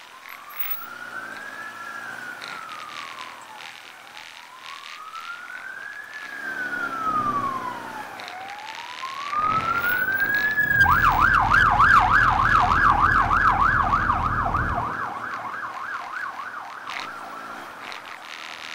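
Emergency vehicle siren in a slow wail that rises and falls about every four seconds. About eleven seconds in it switches to a fast yelp of about four cycles a second, the loudest part, with a low road rumble under it. The yelp stops some six seconds later.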